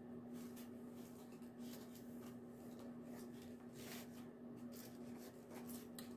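Faint rustling and a few soft clicks of hands handling something, over a steady low hum.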